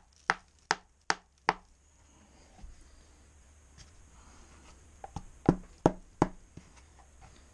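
A run of sharp taps on a hard surface, four evenly spaced in the first second and a half, then another run of five or six starting about five seconds in.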